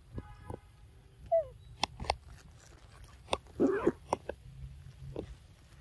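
Young macaques eating fruit: scattered sharp clicks and crunches of biting, the loudest a short crunchy burst a little past halfway. A brief falling squeak comes about a second and a half in.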